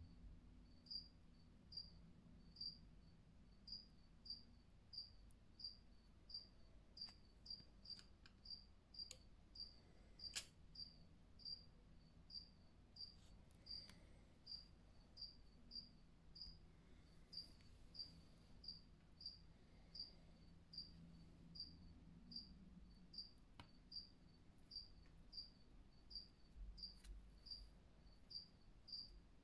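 Faint cricket chirping steadily, about three short high chirps every two seconds, with a few faint clicks about a third of the way in.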